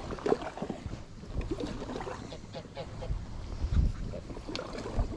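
Ducks or geese calling in a string of short, irregular honking notes, with low rumbling noise now and then.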